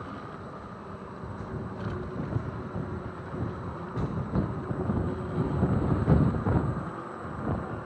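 Wind buffeting the microphone of a camera carried outdoors: irregular low rumbling gusts that swell to their strongest about six seconds in, over a steady faint outdoor hiss.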